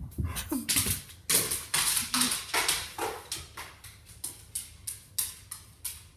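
English setter playing wildly with a toy: a string of short, sharp scuffling bursts, dense and loud for the first few seconds and then coming about two or three a second and fading. Two brief low grunts break in during the first two and a half seconds.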